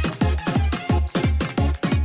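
Electronic dance music with a steady kick drum about three beats a second.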